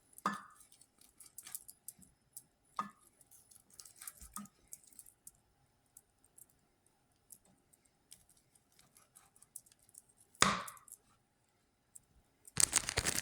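Knife slicing chorizo sausages: sporadic light taps with a few sharper knocks, the loudest about ten seconds in. Near the end a dense crinkling starts.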